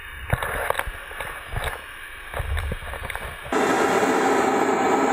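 Scattered knocks and low bumps for about three and a half seconds, then a vacuum running steadily as it sucks bees off a beekeeper's veiled helmet.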